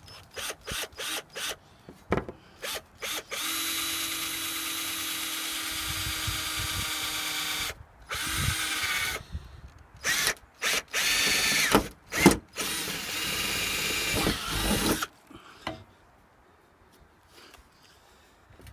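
Ryobi cordless drill boring through a cargo van's sheet-metal roof: a few short trigger blips, then long runs of the motor whining under load, stopping about 15 seconds in.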